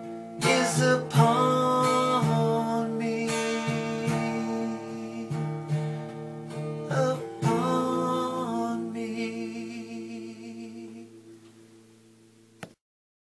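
Final strummed chords of an acoustic guitar, twice, ringing on under a voice holding long wavering notes, the close of a gospel song. The music fades away and stops with a click shortly before the end.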